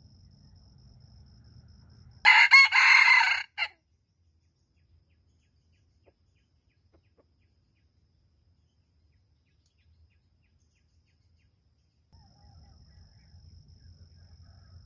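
Red junglefowl rooster crowing once, a short crow of about a second and a half beginning about two seconds in.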